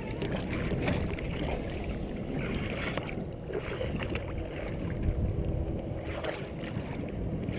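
Wind on the microphone over water lapping against the side of a small fishing boat, with a few faint knocks.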